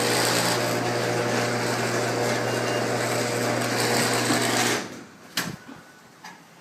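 Sears chain-drive garage door opener, model 139.53708, running loud with a steady motor hum and chain rattle, then cutting off abruptly about three-quarters of the way in, followed by a couple of light clicks.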